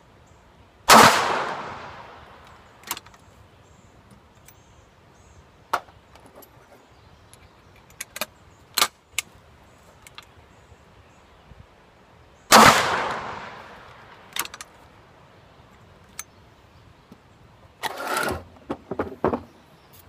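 Two loud .357 Magnum gunshots about eleven seconds apart, each followed by a long fading echo. Fainter clicks and pops fall in between, and a short burst of clattering knocks comes near the end.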